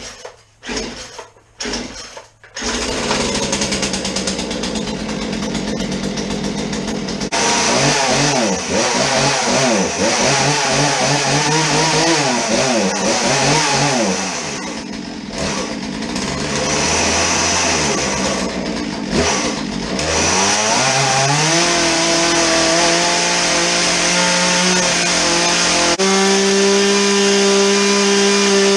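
Small two-stroke chainsaw, a cheap saw that will not idle, being pull-started on choke: several pulls of the recoil starter, then it fires about two and a half seconds in and runs. Its engine speed rises and falls with the throttle for a while, then it holds a steady fast run.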